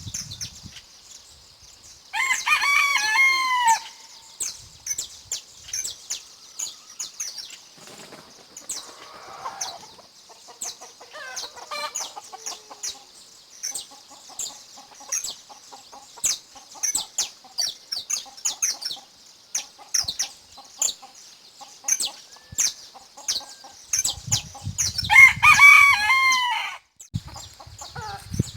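A bantam rooster crows twice, about two seconds in and again near the end, each crow short and loud. Between the crows small songbirds, the canaries of a dawn farmyard, chirp on and on in quick high notes over a steady high hiss, with some softer clucking.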